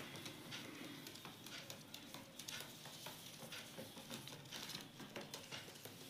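Faint, irregular light taps and scratches of an Indian ringneck parakeet's claws on wooden floorboards as it walks and hops about.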